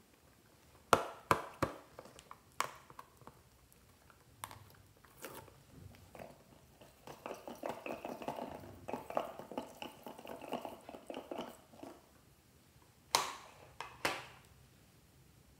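Hands handling slime toys and toppings over glass trays: a few sharp clicks and taps, then a dense crackling rustle lasting about four seconds, then two knocks near the end.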